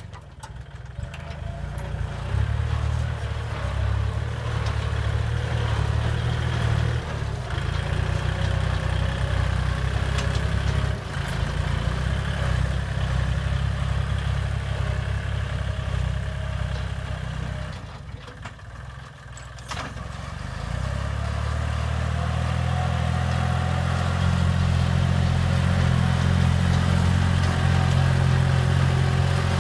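Kubota L3608 tractor's diesel engine running under load, steady and loud, dropping away briefly about two-thirds through, then building back up louder.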